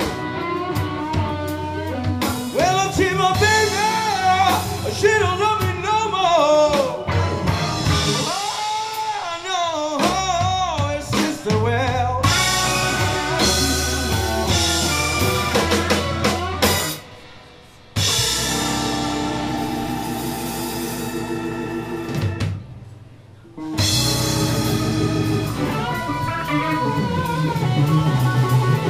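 Live band playing: electric guitars, bass and drum kit, with a lead melody wavering in pitch through the first half. The whole band stops dead twice, briefly, in the second half, then comes back in.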